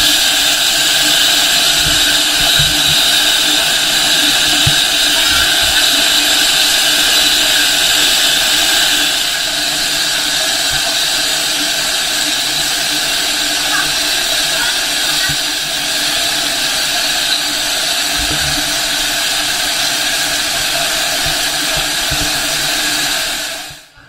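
Waterfall pouring onto rocks and into its pool close by: a loud, steady rush of water, with a few dull knocks. The rush drops slightly in level a little before halfway.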